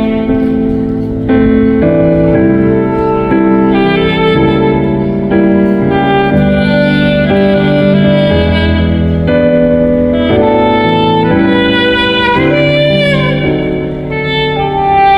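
Saxophone playing a melody over piano and bass accompaniment, the notes changing about once a second.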